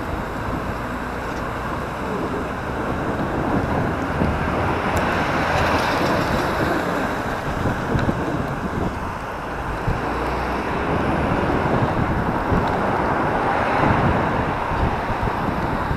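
Wind buffeting the microphone of a camera on a moving recumbent bicycle, over the rumble of passing road traffic. The noise swells twice, about a third of the way in and again near the end.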